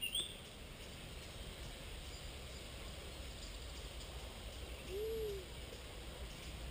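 Steady open-air riverbank ambience: a low wind rumble and a faint hiss, likely the flooded river's current, with a brief rising chirp at the start and a single short low call about five seconds in.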